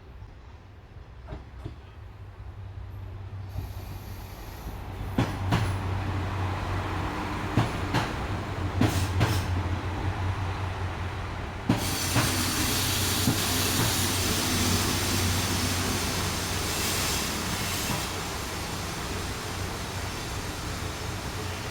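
KiHa 185 series diesel multiple unit pulling in. Its low diesel drone grows louder, with several sharp clacks of wheels over rail joints. About halfway through, a steady high hiss sets in suddenly and carries on over the engine.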